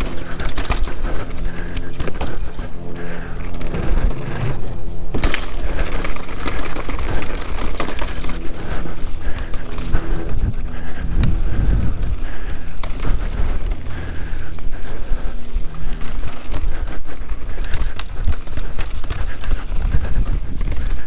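Canyon Sender downhill mountain bike at speed over rocks and dirt: tyres on the trail, constant rattling and sharp knocks from the bike over the rough ground, and wind rushing on the microphone.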